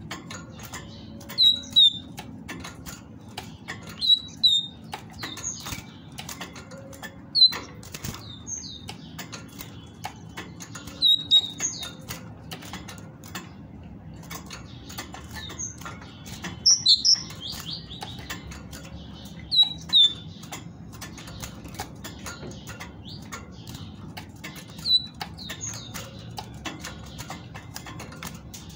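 Caged female great tit fluttering and hopping about its cage, with wing flaps and small clicks. It gives short high call notes every few seconds, often in pairs or threes.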